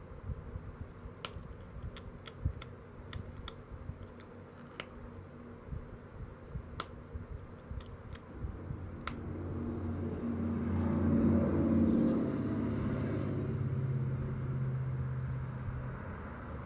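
Obsidian knife edge being pressure-flaked with a pointed tool: a dozen or so sharp, irregular clicks as small flakes pop off. From about halfway in, a passing engine's drone swells, loudest about two-thirds of the way through, then eases off.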